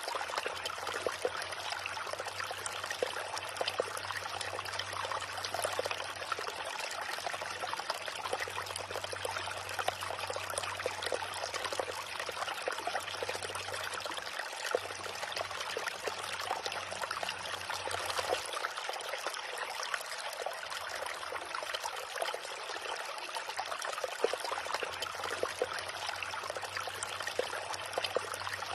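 Small river running, a steady trickling, babbling flow of water.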